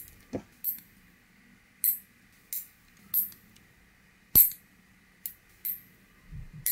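Steel lever nail clipper cutting natural fingernails to length: a series of sharp snips, about eight, at uneven intervals.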